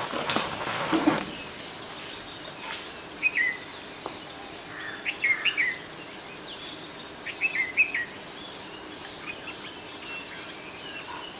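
Small songbirds calling in short chirpy phrases, three or four times, with a couple of thin descending whistles, over a steady high hiss of insects. A short burst of noise comes in the first second.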